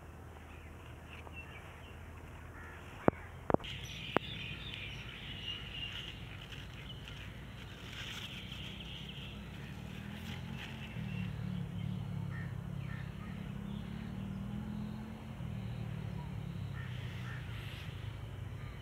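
Outdoor background with handling noise from the phone and the bean plants: a few sharp clicks about three to four seconds in. A low hum grows louder about ten seconds in.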